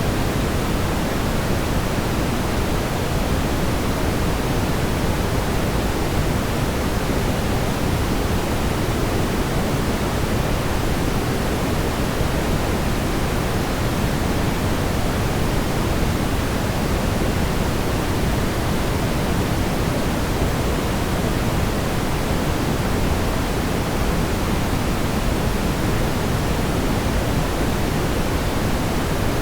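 Smoothed brown noise: a steady, even hiss weighted heavily toward the low end, deep and dull, with no changes or events.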